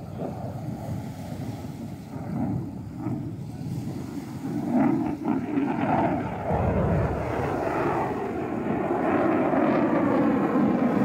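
Jet noise from an F-35A fighter's afterburning turbofan engine as it manoeuvres overhead, growing louder from about halfway through. Near the end the noise takes on a falling, sweeping tone.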